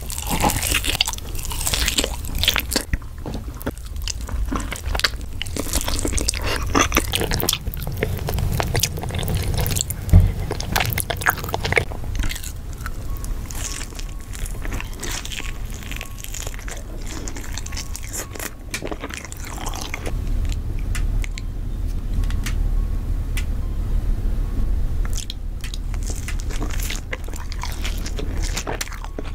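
Close-miked eating sounds: biting and chewing on a sauced barbecue rib, then crunching bites and chewing of crispy red-crusted fried chicken tenders, with many sharp crackles.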